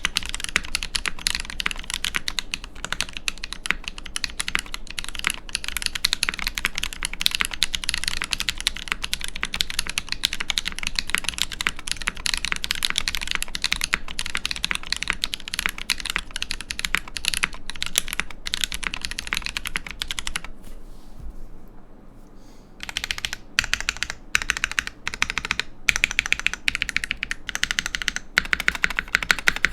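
Typing on a mechanical keyboard with lubed Holy Panda tactile switches on a brass plate in an aluminium Iron165 case with no dampening: a fast, steady stream of key clacks, pausing briefly about two thirds of the way through before the typing resumes.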